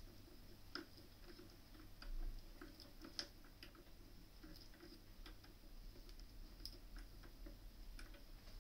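Faint, irregular small clicks and clinks of metal hand tools being picked up and set down around a milling machine vise, while getting ready to hand-tap a hole in steel. No machine is running.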